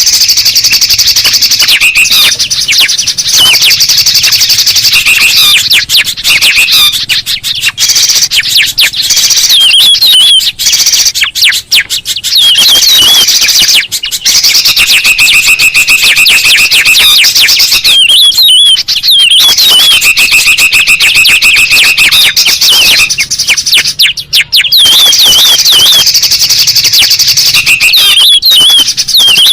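Bird-lure recording of several songbirds calling at once, among them cucak rumbai, Bornean spiderhunter, brinji tungir kuning and kutilang sutra: a loud, dense tangle of chirps, wavering whistled notes and buzzy trills, broken by a few short gaps.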